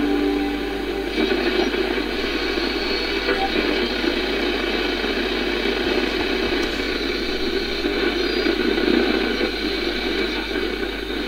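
AM radio static and interference noise from the Sony 8FC-100E clock radio's speaker, a steady rough hiss with no station clearly tuned in. The owner puts the interference down to nearby computers.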